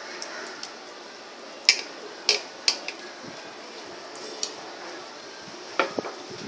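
Hands pressing masala stuffing into a whole pomfret on a ceramic plate, with a few sharp clicks against the plate: three close together about two seconds in and another near the end.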